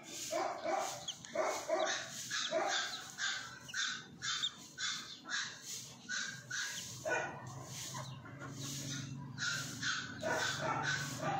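A quick run of short animal calls, about three a second, breaking off about two-thirds of the way through and resuming briefly near the end, over a low steady hum.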